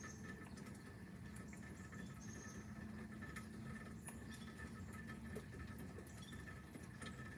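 Faint storm-night ambience: scattered light drips and patter, over a steady high chirring of insects.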